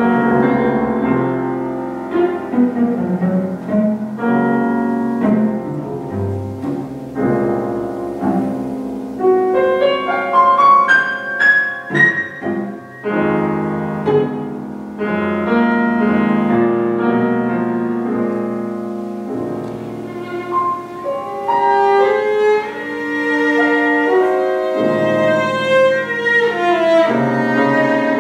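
Cello and grand piano playing a classical duet live. The cello holds sustained bowed notes over the piano accompaniment, and about ten seconds in a quick run of piano notes climbs high.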